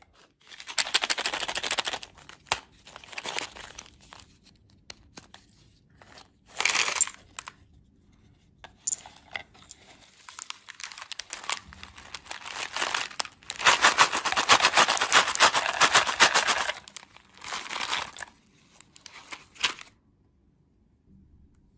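Candy packaging crinkling and tearing as it is opened, in irregular bursts. The longest and loudest burst comes a little past halfway through.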